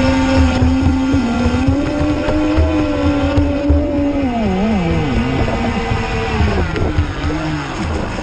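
Radio-controlled electric speedboat running, a steady motor whine that wavers up and down in pitch, then falls lower over the last few seconds as the boat slows, over a low rumble.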